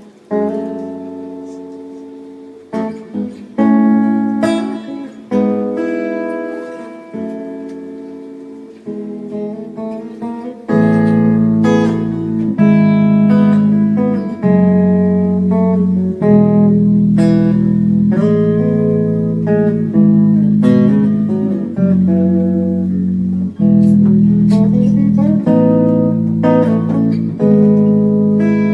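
Guitar playing an instrumental intro: picked chords ring out and fade one after another, then about ten seconds in the playing gets louder and fuller, with low bass notes underneath.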